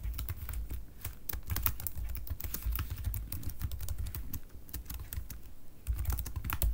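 Typing on a computer keyboard: a fast, uneven run of keystroke clicks with brief pauses.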